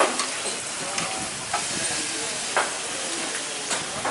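Bone-in beef steaks sizzling steadily on a hot flat-top griddle, with a few sharp clicks of metal tongs against the plate.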